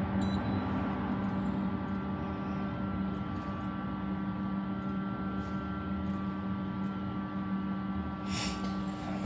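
A steady hum made of several held tones, with a few faint clicks and a short hiss about eight seconds in.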